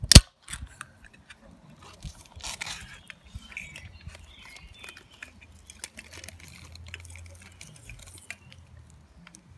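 One sharp click right at the start, then faint scattered taps and rustles as plastic drinking straws are pushed into an aluminium drink can.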